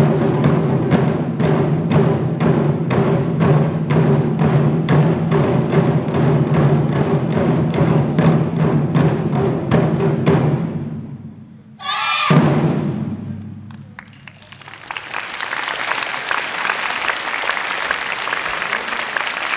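Wadaiko ensemble of nagado-daiko (Japanese barrel drums) beating a steady pulse of loud strokes, about two or three a second, with the drums ringing underneath; the drumming fades out about ten seconds in and a single last strike falls about two seconds later. From about fifteen seconds the audience applauds.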